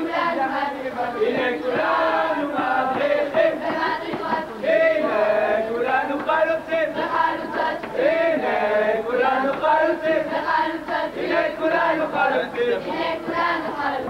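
A large group of young people singing and chanting a song together in unison.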